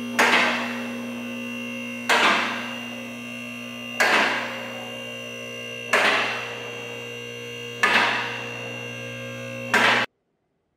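Two-post car lift raising the car: the electric hydraulic pump motor hums steadily, and six loud clacks come about two seconds apart as the lift's safety locks catch. The motor cuts off suddenly near the end.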